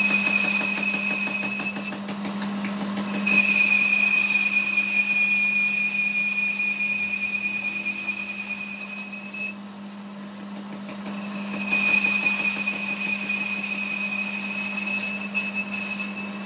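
Metal lathe running with a steady hum while a tool bit cuts the bore of a gear. Each cut gives a high, steady whistle. The whistle comes in three stretches: briefly at the start, from about three to nine and a half seconds, and from about twelve to fifteen seconds.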